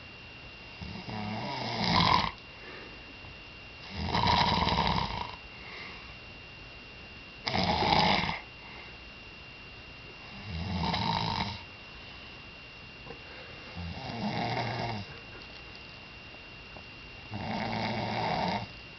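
Snoring: six loud snores, one about every three seconds, each lasting about a second, with quiet breathing gaps between them.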